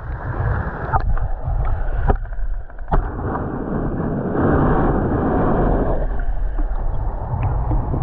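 Wind buffeting the microphone at the water's edge, with lake water washing and gurgling, and a few sharp knocks in the first three seconds; the noise swells for a second or two around the middle.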